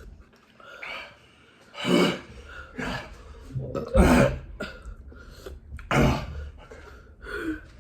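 A person coughing and clearing the throat: about four harsh coughs a second or two apart, the loudest in the middle. This is a reaction to the burn of Buffalo Wild Wings' Blazin' hot-wing sauce.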